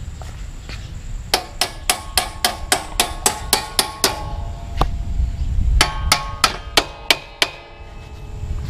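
Metal struck rapidly with a hammer, about four blows a second: a run of a dozen or so, a single blow, then a second run of seven or eight. Each blow leaves a short metallic ring. The hammering comes as a new silencer is being fitted to a motorcycle's exhaust.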